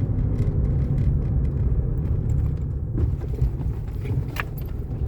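Car cabin noise while driving: a steady low rumble of engine and tyres on the road, with a couple of short clicks about three seconds in and again shortly after.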